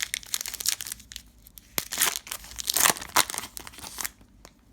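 Foil trading-card pack wrapper crinkling and being torn open, in a few crackling bursts that stop about four seconds in.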